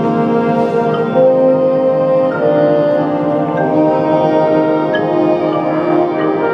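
A school band playing slow, held chords, with trumpets among the brass; the notes change about every second.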